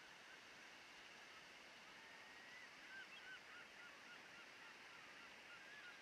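Faint honking calls from a flock of geese, a string of short calls that thickens from about halfway through, over the steady rush of fast river water.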